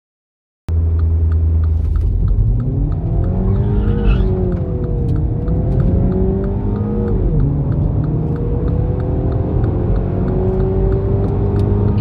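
Mini Cooper S F56's 2.0-litre turbocharged four-cylinder engine pulling under acceleration, cutting in suddenly under a second in. Its pitch climbs, drops about seven seconds in, then climbs slowly again.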